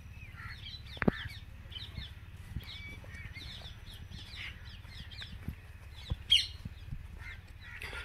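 Many wild birds calling from the marsh, short chirping calls overlapping throughout, with one louder call a little past six seconds in. A low steady rumble and a few sharp knocks lie underneath.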